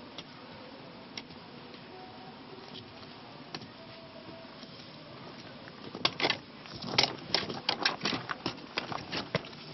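Footsteps crunching on rocks and loose gravel as someone walks down a stony path, a few faint steps at first, then close and loud from about six seconds in, over a steady background hiss.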